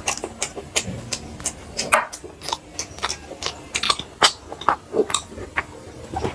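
Close-miked eating: chewing with a quick run of wet mouth clicks and smacks, several a second.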